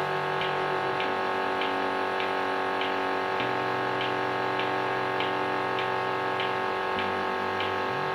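Godhan GS150 milking machine running: the oil-lubricated vacuum pump hums steadily while the pulsator ticks evenly about twice a second.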